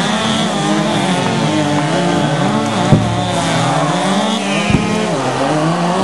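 Several chainsaws running hard at once in a felling race, their engine pitches wavering up and down as they cut. Two sharp knocks break through, about three seconds in and again near the end.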